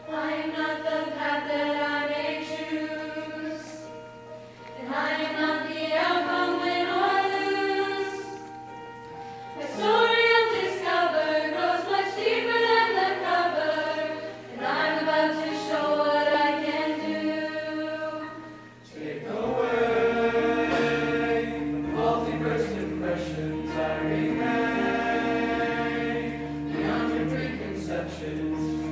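High school mixed choir singing in phrases separated by short breaks; about two-thirds of the way through, lower notes join and the sound grows fuller.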